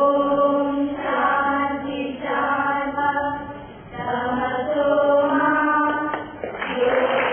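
A group of girls singing a prayer song in unison, with long held notes.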